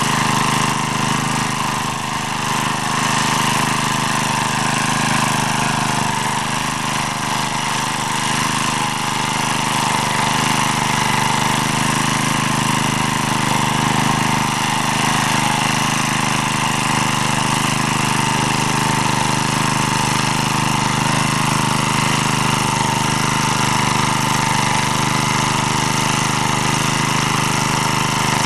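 Engine of an MD3 walk-behind tractor running steadily in first gear while its rotary tiller works the soil.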